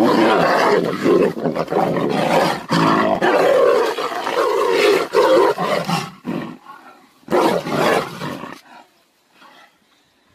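Two tigers fighting, roaring and snarling hard for about six seconds, then one more short burst of roaring about seven seconds in.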